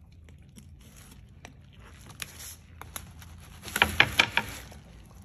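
A knife cutting through a large fish's rib bones while filleting: scattered faint clicks, then a quick cluster of sharp crunching cracks about four seconds in.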